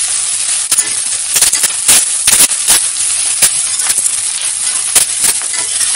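Sliced onions, green chillies and curry leaves frying in oil in a steel kadhai: a steady sizzle, with a metal spatula clinking and scraping against the pan a few times a second as they are stirred. The onions are at the sautéing stage, turning translucent.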